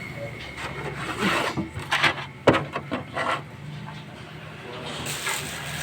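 Close-up eating sounds: a handful of short, crisp crunches and chews in quick succession, the loudest about two and a half seconds in, then it goes quieter.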